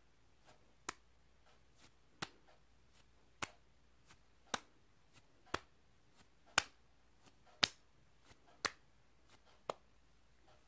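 Palms pressing onto the face and lifting off, working in a cream, making sharp little smacks about once a second. They are loudest near the middle.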